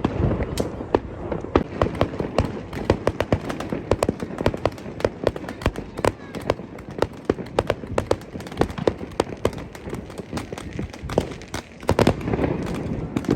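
Fireworks and firecrackers going off in rapid, irregular bangs, several a second, with a louder cluster near the end.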